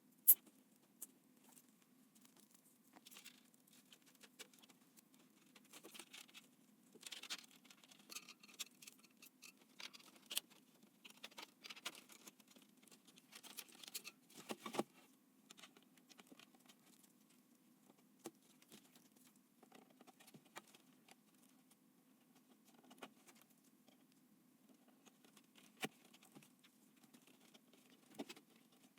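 Small irregular clicks, taps and scrapes of computer parts being handled and fitted during a PC build, with a sharp click just after the start and a faint steady low hum underneath.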